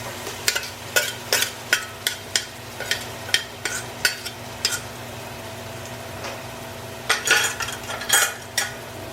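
A utensil stirring and scraping in a frying pan, about two to three strokes a second, with a pause before a last few strokes near the end, as ginger garlic paste is worked into onions frying in oil.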